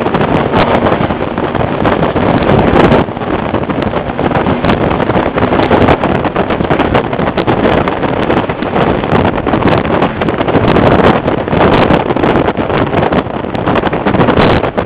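Road and engine noise of a car driving at speed, with heavy wind buffeting on the microphone, steady and loud throughout.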